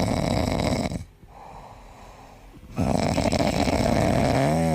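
Loud rattling snoring: one long snore ends about a second in, and after a pause another begins near the three-second mark. It closes with a brief whistling tone that bends up and then down.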